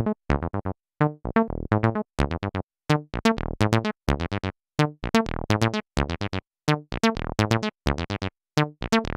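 Behringer TD-3 analog bass line synthesizer, a TB-303 clone, playing a sequenced acid bass line on its sawtooth waveform: short, clipped notes in a steady rhythm. Their brightness shifts from note to note as the filter knobs are turned.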